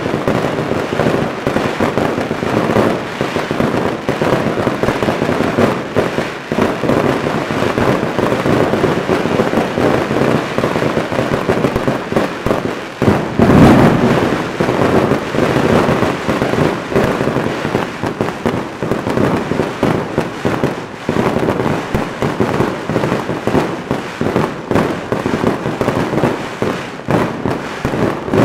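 Daytime fireworks display: a dense, continuous crackle of firecracker reports and small aerial shells bursting overhead, with one heavier boom about halfway through.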